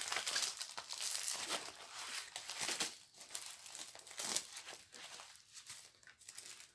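Plastic crinkling as a diamond painting kit is folded and slipped back into its small plastic bag. The crinkling is dense for the first few seconds, then thins to scattered rustles.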